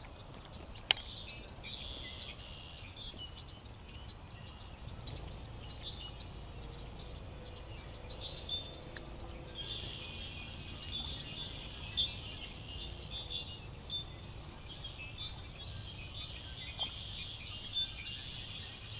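Birds chirping and trilling on and off, busier in the second half, over a steady low rumble. A single sharp click about a second in, and a few fainter knocks later.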